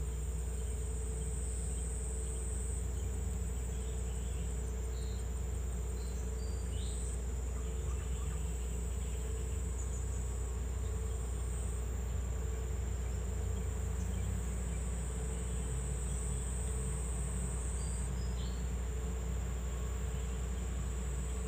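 Insects chirring in a steady, high, even trill, over a constant low hum. A few brief high chirps stand out once or twice.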